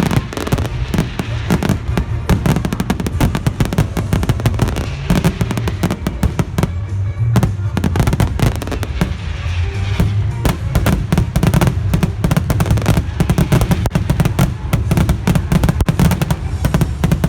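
A dense, rapid barrage of fireworks bursts and crackling, many reports a second without a pause, with music from the show's soundtrack playing underneath.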